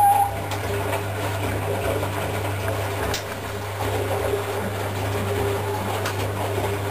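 Polar Westa-85 front-loading washing machine running a wash cycle: a steady motor hum as the drum turns the wet laundry.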